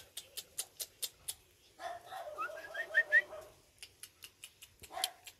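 Young puppies whimpering, with a run of short rising squeaks about two seconds in, and a brief yelp near the end. Quick sharp clicks, about five a second, come before and after the whimpering.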